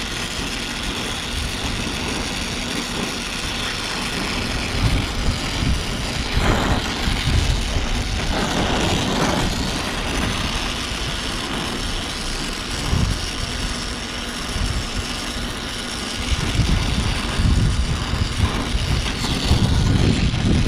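Brazing torch flame hissing steadily as it heats and brazes copper joints on a rooftop unit's coil to seal a refrigerant leak, over a steady low rumble.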